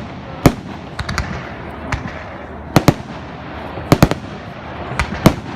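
Fireworks display: firework shells bursting in sharp bangs at irregular intervals, about nine in all, several coming in quick pairs.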